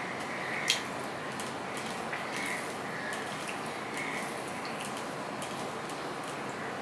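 Hand-eating sounds: fingers breaking fried folui fish and working rice on a steel plate, giving scattered soft clicks and one sharp click just under a second in, over a steady hiss.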